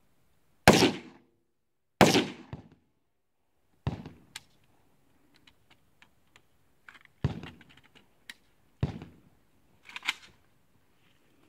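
Gunshots on an outdoor shooting range: five loud, sharp shots at irregular intervals of one to three seconds, each with a short echoing tail, with fainter pops and clicks between them.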